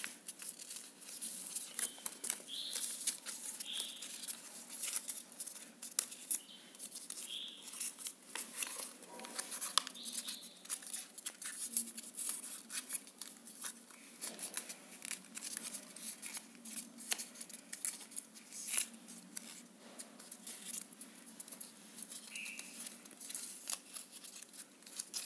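A sheet of squared exercise paper being folded and creased by hand: intermittent rustling and crinkling with many short, crisp clicks as folds are pressed down.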